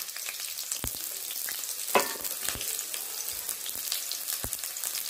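Chopped onions and whole dried red chillies sizzling in hot oil in a kadhai, a steady crackle with scattered sharp pops and one louder click about two seconds in.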